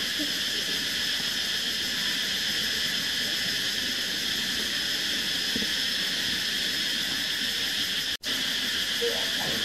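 Insects, cicadas, droning in a steady high-pitched chorus. The sound drops out for an instant about eight seconds in.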